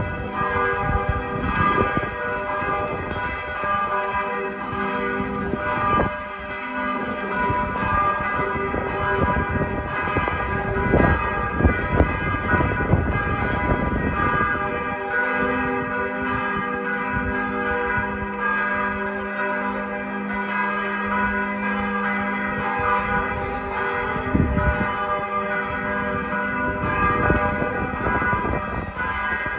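Several large church bells of St. Vitus Cathedral ringing together in a continuous, overlapping peal, with many tones sounding at once. A low rumble comes and goes underneath.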